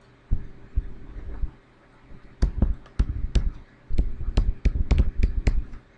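A stylus tapping and scraping on a pen tablet as lines and letters are drawn: short, sharp clicks with dull thuds under them, two in the first second, then a quick irregular run of about a dozen through the middle and later part.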